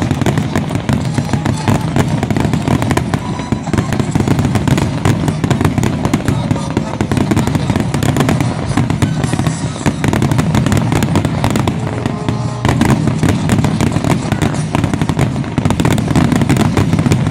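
Fireworks display: a dense, unbroken barrage of aerial shell bursts, rapid bangs and crackles one after another.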